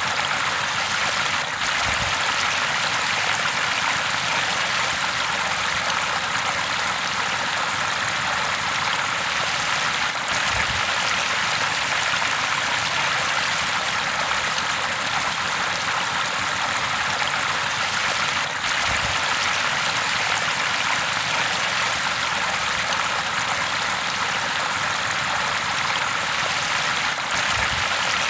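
River water flowing steadily: an even, unbroken rushing hiss of a stream running over rocks.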